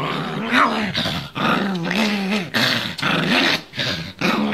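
Small papillon dog growling in excited play, a run of five or six short, wavering growls one after another.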